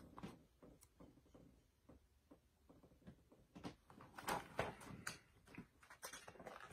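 Handling of a large hardcover picture book, mostly very quiet: a few faint rustles and soft taps in the second half as the book is moved and its page turned.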